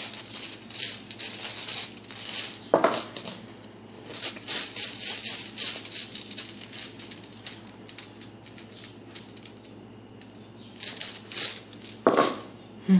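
Runestones rattling and clacking together inside a cloth pouch as it is shaken to draw a stone. The rattling comes in bouts: through the first few seconds, again about four seconds in, and once more near the end after a quieter stretch.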